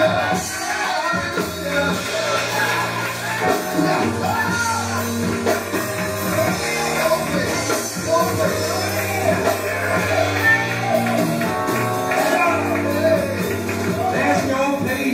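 Live gospel music: a male vocal group singing with band accompaniment, the bass holding steady low notes under the voices.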